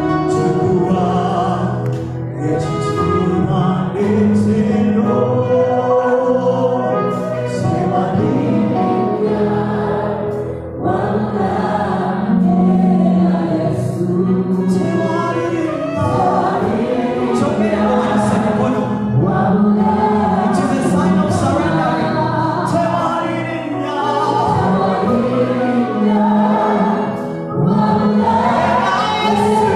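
Live gospel worship music: a male lead singer with backing choir voices over a band of keyboards, electric guitars and drums.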